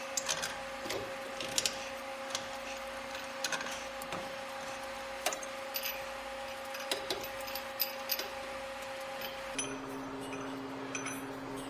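Scattered light clicks and clinks of metal tools and parts being handled, over a steady mechanical hum that shifts to a lower set of tones near the end.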